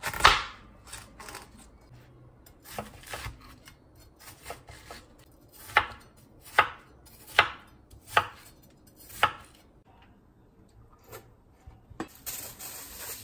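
Kitchen knife chopping watermelon on a cutting board: a loud chop at the start, a few lighter cuts, then a run of five sharp knife strikes on the board a little under a second apart.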